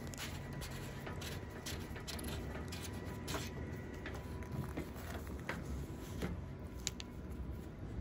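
Plastic hose nut being unscrewed by hand from a washing machine's water inlet valve: scattered small clicks and plastic rubbing on plastic, over a low steady hum.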